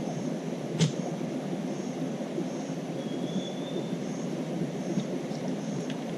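Wood campfire burning with a steady rushing crackle and one sharp pop about a second in. Jungle insects chirp faintly in a slow repeating pulse above it.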